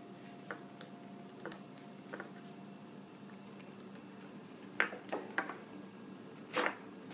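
Handling noise from a nylon parachute and shock cord being stuffed into a Mariah 54 model rocket's body tube: scattered faint ticks and rustles, a few sharper clicks about five seconds in, and one louder click near the end.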